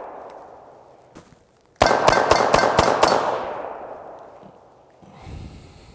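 A rapid string of about six gunshots about two seconds in, fired a fraction of a second apart, with the echo ringing out and trailing off over the next couple of seconds.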